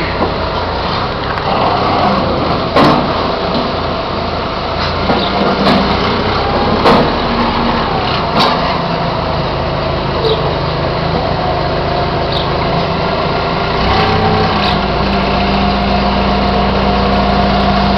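Hanomag 22C wheel loader's diesel engine running under load while the loader handles round hay bales, with occasional sharp knocks from the bucket and linkage. About fourteen seconds in, the engine settles into a higher, steadier note.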